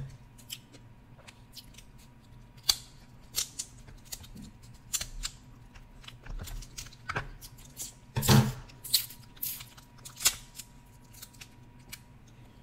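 Scissors snipping and cracking through Dungeness crab shell: an irregular string of sharp snips and cracks, the loudest about eight seconds in.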